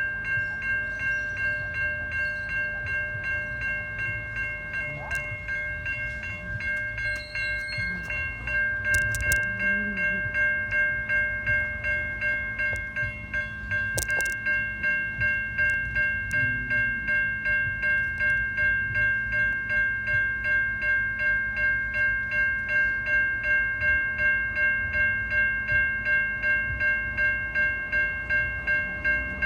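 Older-style Safetran Type 3 electronic level-crossing bells ringing steadily at about two strokes a second, over the low rumble of a passing train.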